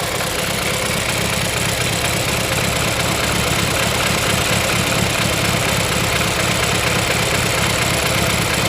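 BMW 328i's N20 turbocharged four-cylinder engine idling steadily while misfiring: cylinder 2 has no compression after internal damage to the cylinder wall.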